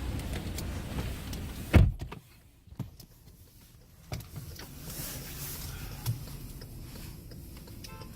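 Car sounds: a steady low hum, broken off by a loud thump a little under two seconds in, then quieter with scattered clicks and knocks.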